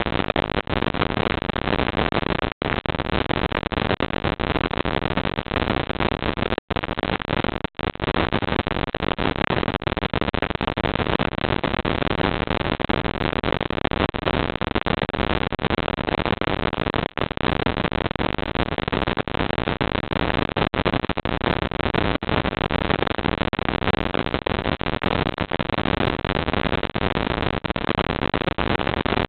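Steady, even hiss of noise from a security camera's microphone, broken by three brief dropouts to silence in the first eight seconds.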